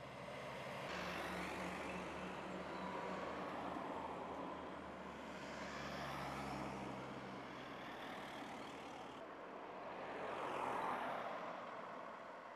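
Road traffic passing: several vehicles go by one after another, the last and loudest near the end, with the steady low hum of an engine running under the first two-thirds.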